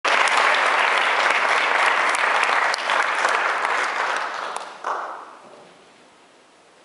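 Audience applauding, a dense patter of clapping that dies away about five seconds in.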